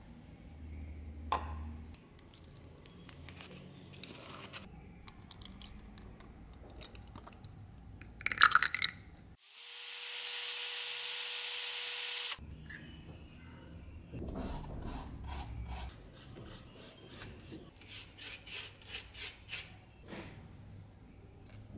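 Workshop handling sounds of rubbing and scraping on wooden scabbard pieces. A loud steady hiss starts abruptly about nine seconds in, lasts about three seconds, and cuts off. Near the end comes a quick run of short, even strokes.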